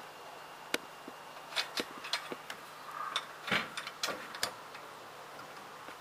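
Irregular metal clicks and clinks of steel leg and foot parts being handled and fitted together with a frame clip, about a dozen sharp knocks over four seconds.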